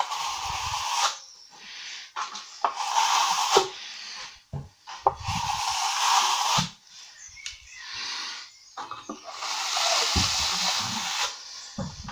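Steel plastering trowel sweeping across a wet skim coat of Thistle Multi-Finish plaster, with a hissing scrape on each of several long strokes as the finish coat is trowelled flat.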